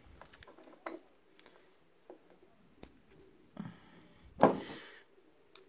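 Handling sounds of a drill-mounted double-head sheet-metal nibbler being reassembled by hand: several light clicks as a wire circlip is worked into the groove of its aluminium head, then a louder brief scrape about four and a half seconds in.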